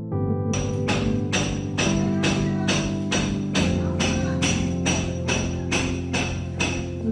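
Background music: sustained synthesizer chords with a bright, evenly paced percussion hit about twice a second, coming in about half a second in and stopping at the end. The chord shifts to a lower bass note about halfway through.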